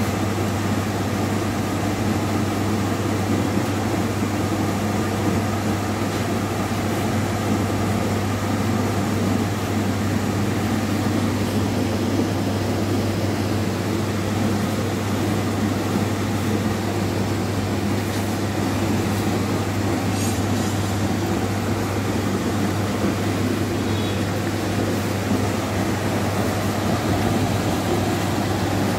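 Heat shrink tunnel of a shrink wrapping machine running, with its blowers and mesh chain conveyor: a steady mechanical drone with a strong low hum.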